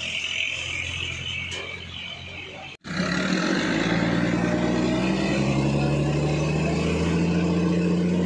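A vehicle engine rumbling with a steady high hiss over it, cut off abruptly about three seconds in. Then a heavily loaded box truck's diesel engine pulling under load, its low note rising a little and then holding steady.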